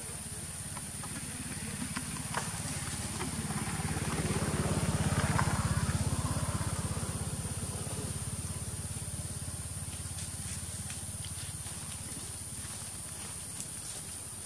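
Steady high-pitched insect drone with a low motor rumble that swells and fades around the middle.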